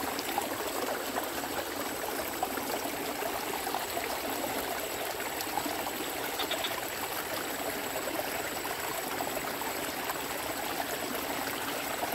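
Steady rush of running water in a small ditch, an even hiss that holds unchanged, with a faint thin high tone running under it.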